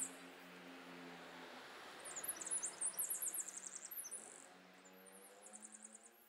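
Faint, very high-pitched chirping in quick repeated trills, coming in several runs, over a faint low steady hum.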